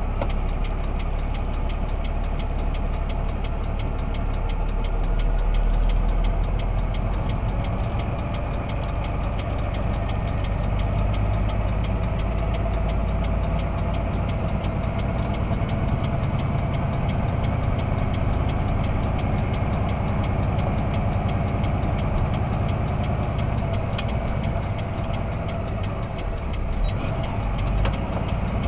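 A semi truck's engine running steadily at cruising speed, heard from inside the cab, with a fast, even pulsing and road noise underneath.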